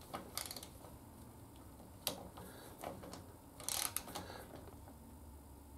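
Faint, irregular clicks of a ratchet in short runs while a stainless steel Torx bolt is tightened.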